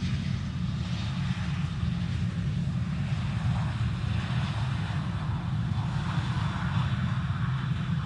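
Airbus A320-211's CFM56 jet engines passing close on the landing roll: a steady low rumble under a hiss that swells a little midway.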